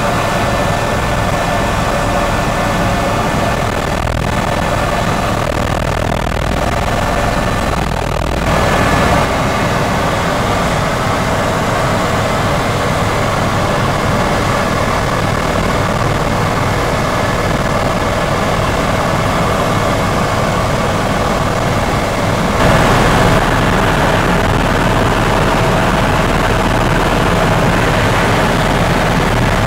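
Helicopter engine and rotors running steadily, a dense mechanical noise with a constant high whine. It grows a little louder about 23 seconds in.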